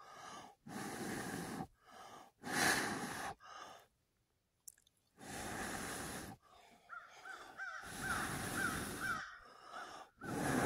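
A person blowing on a smouldering char-cloth ember in several long breaths with pauses between them, to coax it into flame. A bird calls repeatedly in quick short notes during the latter half.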